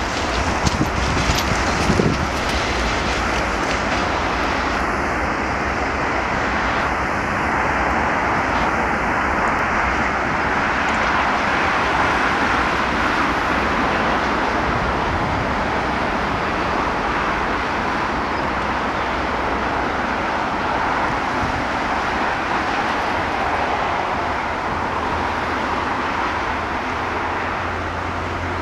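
Freight train of rail tank wagons rolling past on the track: a steady rumbling hiss of wheels on rails, with a few sharp clacks in the first two seconds.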